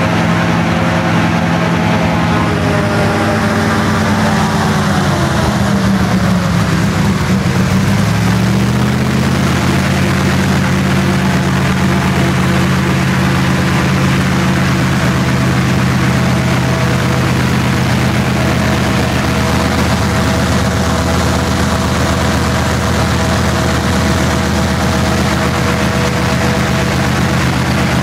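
Airboat's Chevrolet engine and caged propeller running. The engine note falls between about four and eight seconds in as the throttle comes off, then settles to a steady idle.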